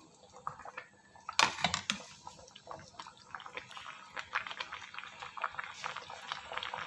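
Fish soup simmering in a pan on the stove, its bubbles popping in a fine, irregular patter that grows denser from about three seconds in. One sharp knock, the loudest sound, about a second and a half in.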